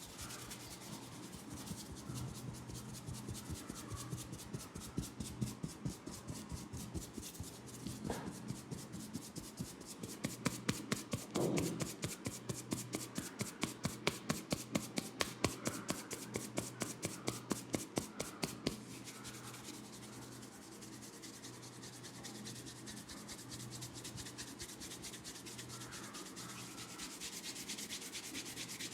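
Hands rubbing during a head massage, in quick, even strokes about three a second. The strokes grow louder through the middle, then ease into softer, steadier rubbing.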